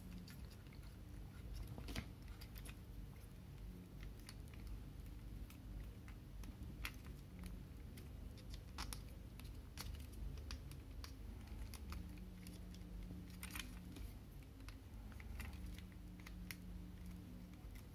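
Hard plastic parts of Robot in Disguise Transformers figures clicking and snapping as they are handled and fitted together, scattered sharp clicks at uneven intervals over a faint low hum.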